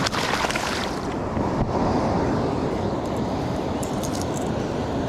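Steady wind buffeting the microphone outdoors, a low rushing noise that swells and dips, with a short brighter rustle in the first second.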